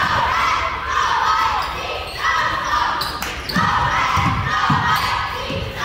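Basketball dribbled on a gym's hardwood floor, a run of low bounces in the second half, with voices calling out over it.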